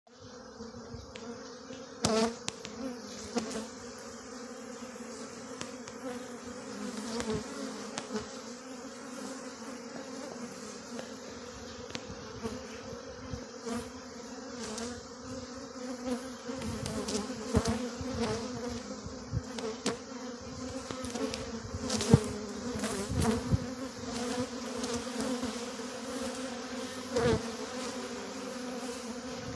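Honeybees humming steadily around their hive entrances, the even drone of many bees in flight. It comes from strong colonies in full flight, ready for the black locust nectar flow. A few brief louder moments stand out, the loudest about 22 seconds in.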